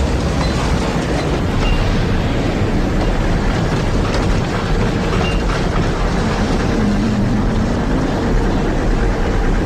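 Tornado sound effect: a loud, steady rumble of wind noise, heaviest in the low end, without a break.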